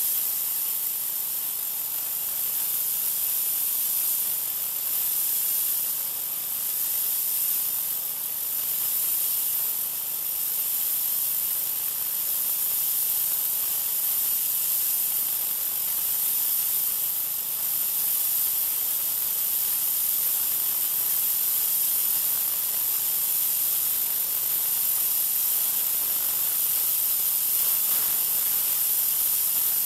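Troy-Bilt 2200 psi pressure washer's oscillating tip spraying a high-pressure jet of water onto a concrete sidewalk: a steady, unbroken hiss.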